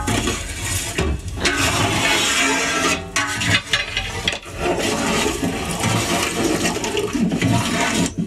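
Water splashing and sloshing in a large metal cooking pot, a steady rushing noise with a few short breaks.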